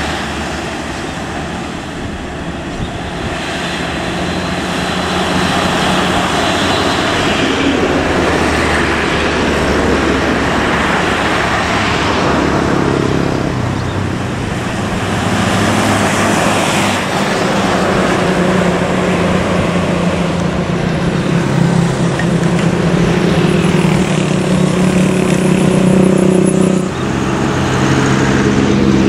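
Road traffic passing close by, with buses, cars and motorcycles driving past. Steady engine hum grows louder in the second half, and the sound changes abruptly near the end.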